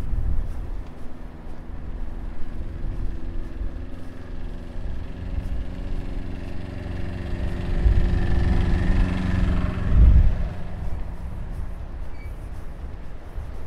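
A motor vehicle drives past, its engine note building over several seconds and fading after about ten seconds. Wind buffets the microphone with low rumbling gusts.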